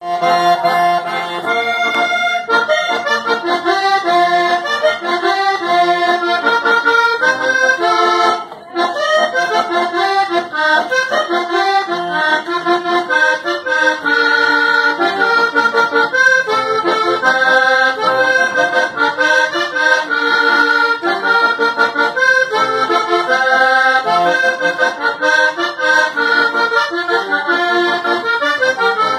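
Three-row diatonic button accordion playing a vallenato intro: fast runs of melody notes over bass-button accompaniment, with a brief break about eight seconds in.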